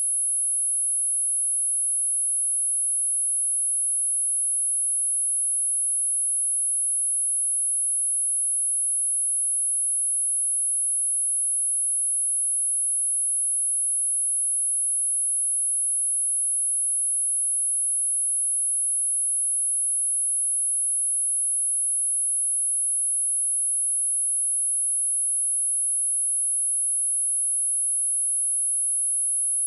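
A 10,627 Hz sine-wave speaker test tone: one pure, very high-pitched tone held steady at an even level.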